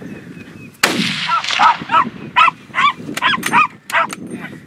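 A single rifle shot about a second in, with an echoing tail, followed by hunting dogs barking in a rapid run of barks.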